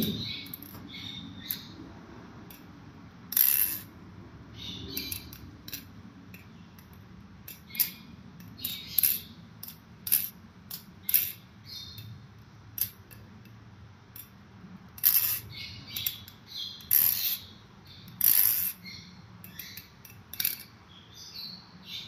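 Balisong butterfly knife being flipped: irregular metallic clicks and clacks as its 7075 aluminium handles swing around the blade and strike each other, with a few louder clacks among the lighter ticks.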